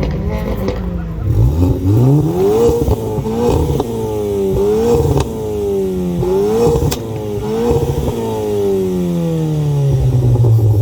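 Tuned car engine revved hard in repeated blips, its pitch climbing and dropping about five times, with a few sharp exhaust pops from the anti-lag system. Near the end the revs slide slowly down.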